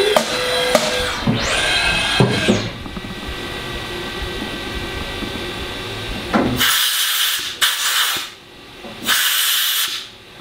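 CNC milling machine's spindle whine rising to a steady high pitch and winding back down within the first few seconds, followed by a lower steady machine noise. Near the end come two abrupt bursts of hiss, each about a second long.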